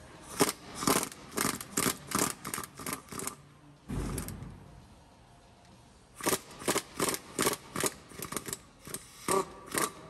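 Pneumatic wrench on a brake caliper bracket bolt, triggered in short bursts to break the bolt loose: about eight quick pulses in three seconds, a dull thump, then another run of about ten pulses.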